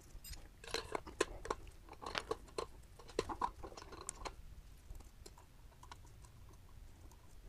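A run of light clicks and taps from the wheel and balancer parts being handled as the wheel is set up for balancing. The clicks come in quick irregular clusters during the first four seconds or so, then fade.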